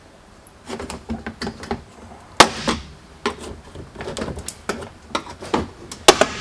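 Irregular clicks and knocks of a car's interior door trim being pulled and pried apart, with two loud sharp cracks, one about two and a half seconds in and one near the end.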